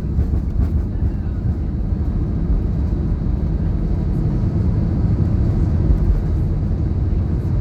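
Steady low rumble inside the cabin of an Airbus A320neo, from its engines and the air and wheels around it.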